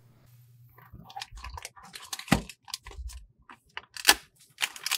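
A black plastic booster packet crinkling in the hands and being slit open with a hobby knife, with a few sharp clicks of handling.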